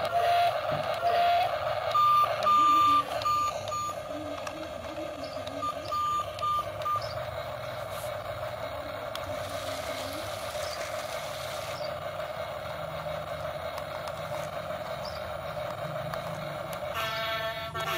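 Battery-powered RC toy excavator working its boom and arm: repeated short electronic beeps over the first several seconds, with a steady electric whir throughout.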